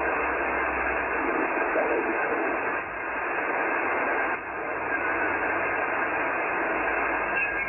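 Icom IC-7300 receiver audio from its speaker while being tuned down through the 40-metre band in lower sideband: steady static hiss with faint, garbled sideband voices. The sound dips briefly twice as the dial moves.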